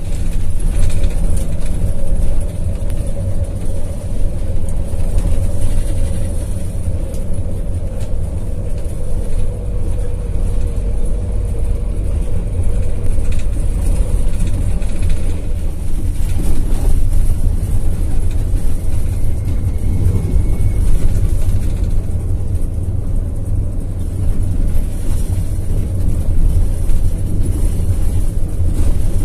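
Intercity bus under way, heard from inside the cabin: a steady, loud low rumble of engine and road noise, with an engine drone that falls slightly in pitch in the first third.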